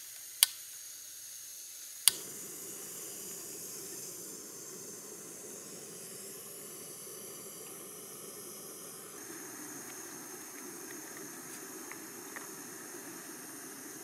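Jetboil backpacking stove on a gas canister: two sharp igniter clicks, and on the second, about two seconds in, the burner lights and hisses steadily. The hiss changes tone about nine seconds in.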